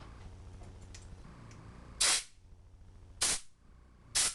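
Three short blasts of compressed air from an air blow gun, about a second apart, blowing out passages of a Holley carburetor being cleaned; the first is the loudest.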